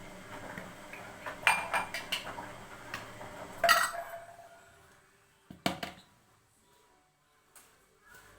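Kitchen utensils clinking and knocking against a glass jar as it is filled with a blended mixture. There is a scatter of sharp clinks, loudest about three and a half seconds in, then two isolated knocks after a quieter stretch.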